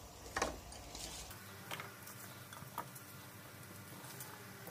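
A few faint, soft taps as sliced carrot and onion pieces are dropped by hand onto fried duck pieces in a multicooker bowl, the clearest about half a second in.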